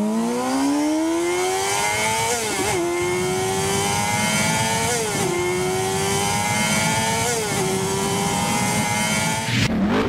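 Engine sound effect of a vehicle accelerating hard through the gears: the pitch climbs, dips at each of three gear changes, and climbs again.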